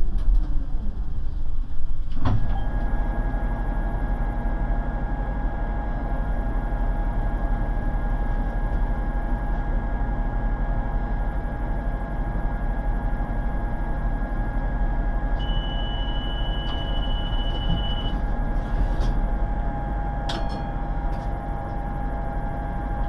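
Tram heard from inside the driver's cab. It runs along the track for about two seconds, then the sound changes abruptly to the steady hum and whine of the tram's electrical equipment while it stands at a stop. Partway through, a high tone sounds for a couple of seconds, and a few clicks come near the end.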